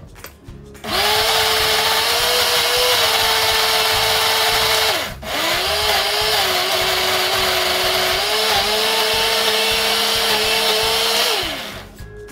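Black+Decker countertop blender motor running on a load of cooked mung beans, puréeing them, its pitch wavering slightly with the load. It runs for about four seconds, stops briefly, then runs again for about six seconds before spinning down.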